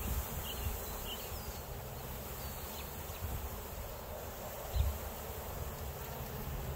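Honey bees buzzing as a package of bees is shaken and poured out into a hive box, with one dull thump about five seconds in.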